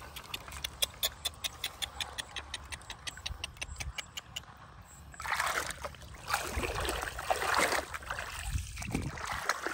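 A run of quick, evenly spaced ticks, about four a second, for the first four seconds or so, then water splashing and sloshing in the shallows for the rest.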